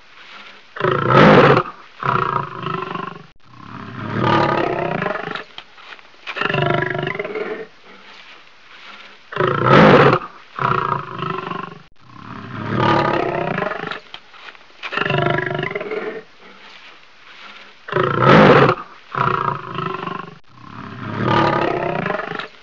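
Lion roaring and growling: one short, loud roar followed by a run of shorter growling roars. The same sequence repeats about every eight and a half seconds, as a looped sound effect.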